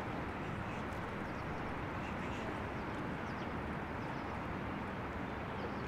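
Steady outdoor waterside ambience: an even wash of wind and water noise with faint short high chirps scattered through it.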